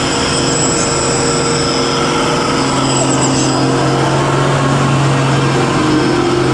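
Heavy diesel truck engine running with a steady low drone, over a wash of road noise.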